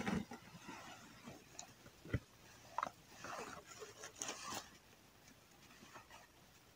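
Close handling noises: a dull thump right at the start, then scattered small clicks, knocks and rustling at irregular intervals as hands work with things at close range.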